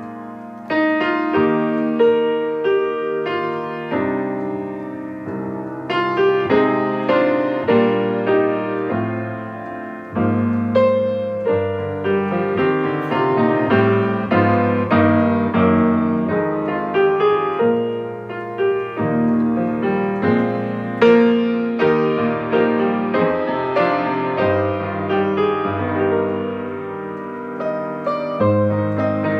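Solo piano playing a flowing postlude, notes struck several times a second over sustained low chords.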